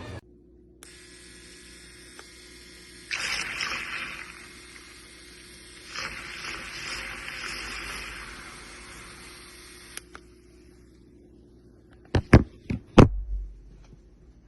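Handheld rechargeable milk frother with a stainless steel whisk running, a steady electric hum as it churns coffee, with two louder stretches of splashing froth. It cuts off about ten seconds in, and a few sharp knocks follow near the end.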